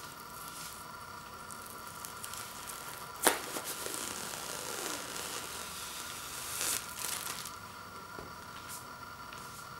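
Clear plastic shrink wrap being torn open and peeled off a vinyl LP jacket: a sharp snap of the film a little over three seconds in, then several seconds of crinkling as it is pulled away.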